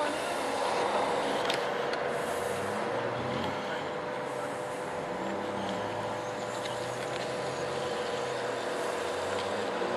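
A motor running steadily with a constant hum, with faint voices in the background.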